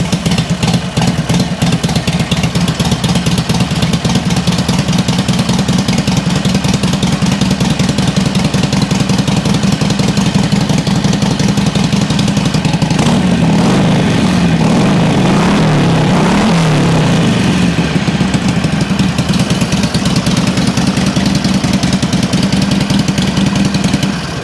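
Harley-Davidson Sportster 1200's air-cooled V-twin running just after starting, with the no-crank fault fixed. It idles steadily, is revved up and down several times about halfway through, settles back to idle and is shut off at the very end.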